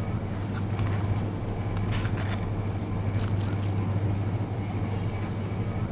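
Steady low electrical hum of a shop's open refrigerated display cabinets, with a few light clicks and rustles scattered through it.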